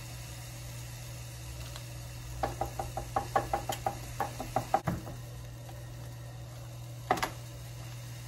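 A quick run of light knocks and taps, about five a second, from hands working pork chops in a metal baking pan, ending in a heavier thump, with one more knock a couple of seconds later. A steady low hum runs underneath.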